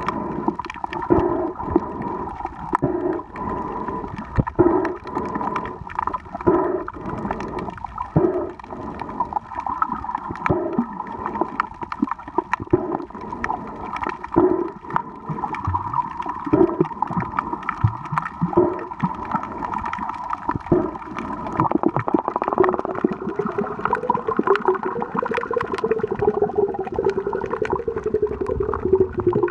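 Underwater sound picked up by a diving camera: a steady hum with uneven gurgling water pulses about once a second and scattered clicks. A second, lower drone comes in about two-thirds of the way through.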